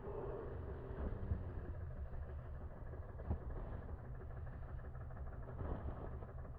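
A vehicle engine idling: a low, steady rumble with a couple of faint knocks.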